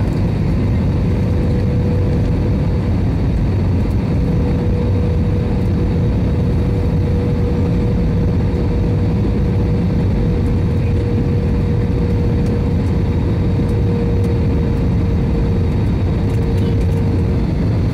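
Cabin noise of a jet airliner on its landing approach: the engines running with rushing air, a steady loud drone with one constant tone held throughout.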